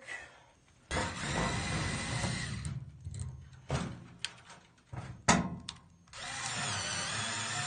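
Cordless screwdriver backing out the screws that hold a fluorescent light ballast in the fixture pan: two runs of the motor, each about two seconds, with clicks and knocks between them as screws and parts come loose.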